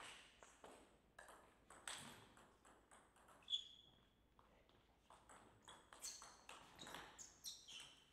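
Table tennis ball being played, a series of faint, sharp ticks off the bats and table. The loudest tick comes about three and a half seconds in, with a short high ring after it.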